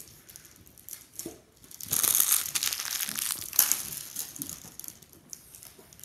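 Clear plastic packaging crinkling as a new puzzle cube is unwrapped, loudest for about two and a half seconds starting about two seconds in.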